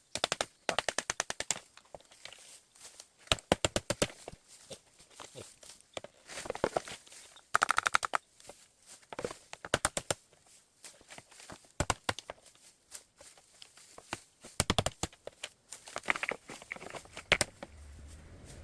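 Dry bamboo crackling and snapping in short bursts of rapid sharp clicks, a few seconds apart, as fallen bamboo is cut and broken by hand.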